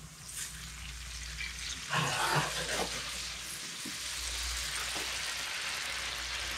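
Wine poured into a hot pan of butter and garlic: the sizzle jumps up about two seconds in, then settles into a steady sizzle as the wine halts the garlic on the edge of browning.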